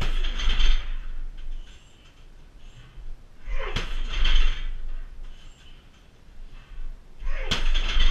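Right shin roundhouse kicks smacking into a 60 kg heavy bag three times, about three and a half seconds apart, each impact followed by about a second of rattling from the bag's hanging chains and steel stand.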